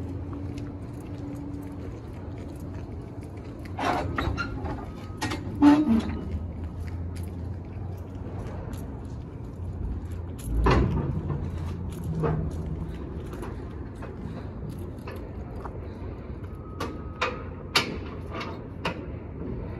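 Truck-yard ambience: a steady low hum, broken by scattered knocks and clicks. A heavy thump comes about halfway through, and a few sharp metallic clicks come near the end, as a semi-trailer's rear door is handled.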